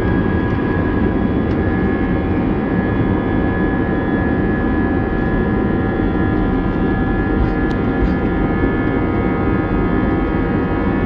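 Airbus A320's twin jet engines at steady take-off thrust, heard from inside the cabin: a loud rumble with several high whining tones held level.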